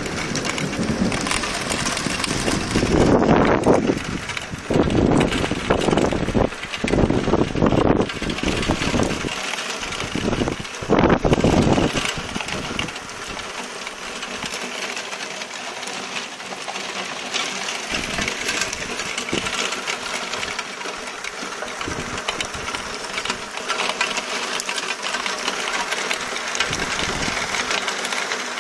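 Heavy thunderstorm rain pouring steadily and streaming off a roof edge. In the first dozen seconds several loud, low rushes of sound rise and fall; after that it settles into an even rain hiss.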